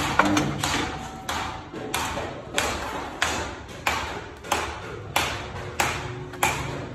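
Background music with a steady beat of sharp, ringing percussive strikes, about three every two seconds.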